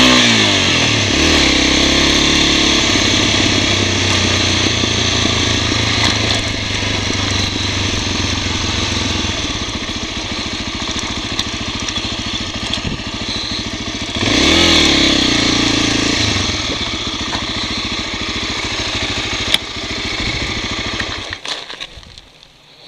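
Honda NX250's single-cylinder four-stroke engine running on the move over a dirt trail, with steady wind hiss. It revs up and back down once about fourteen seconds in, and near the end the engine sound falls away as the bike comes to a stop.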